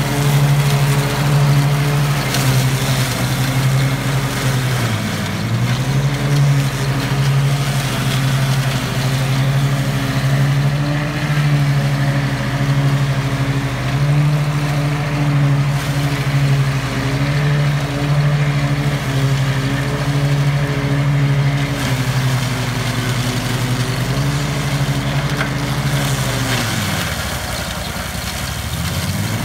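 Ride-on mower engine running at a steady speed while its blades cut through blackberry brush. The engine note dips briefly about five seconds in, then sinks deeply near the end and climbs back: the engine labouring under the load of thick brush.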